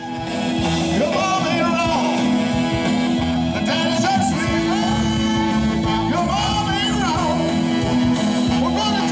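Rock band playing, led by a drum kit with crashing cymbals, with a singer over it and long held notes underneath. The music comes in abruptly right at the start.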